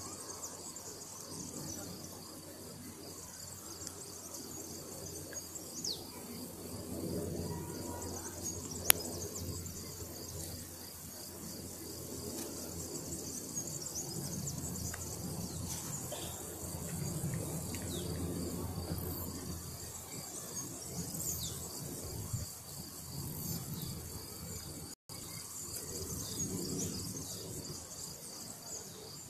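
Insects chirping steadily in a high, evenly pulsing trill over a low, fluctuating rumble. A single sharp click comes about nine seconds in.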